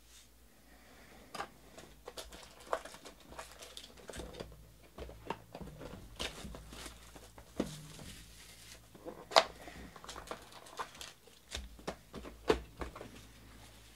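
A sealed cardboard trading-card hobby box being torn open by hand and its foil card packs pulled out and set down. Irregular crinkling, tearing and light knocks, with a couple of sharper knocks in the second half.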